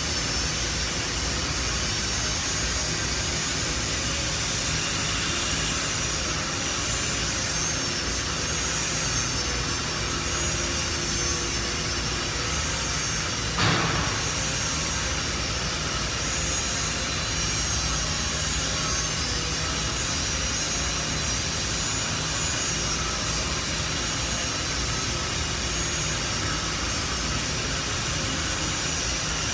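Hand-held angle grinder grinding down welds on steel plate, a steady high whine that wavers as the disc bears on the metal. A single short knock about halfway through.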